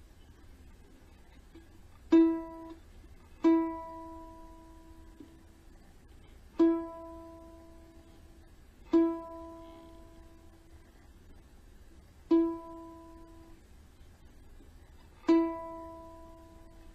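Kala Ukadelic soprano ukulele: one open string, the E, plucked six times at the same pitch, each note left to ring for about a second and fade, with pauses between while the string is retuned. New strings keep slipping out of tune.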